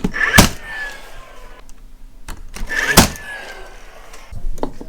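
A staple gun firing twice, about two and a half seconds apart, driving staples into cedar ceiling boards. Each shot is a sharp crack followed by a short ringing tone that falls slightly in pitch.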